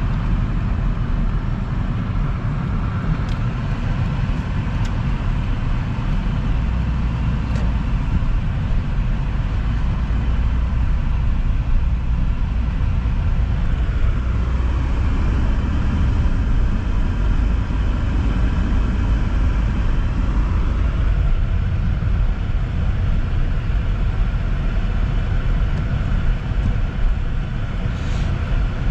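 Steady low rumble of a car's engine and tyres heard from inside the cabin while driving on a snowy, salted road.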